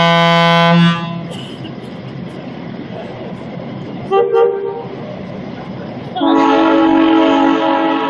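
Air horns of vintage E and F unit diesel locomotives blowing in turn: a blast of about a second at the start, a short toot about four seconds in, and a longer, louder multi-note horn chord starting about six seconds in.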